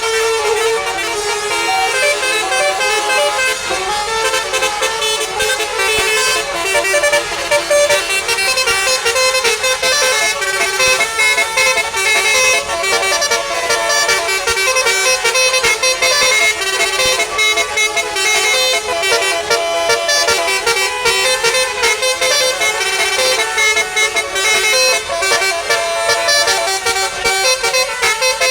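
Indonesian bus 'telolet basuri' multi-tone horn playing a tune. Its notes change every fraction of a second and it runs without a break.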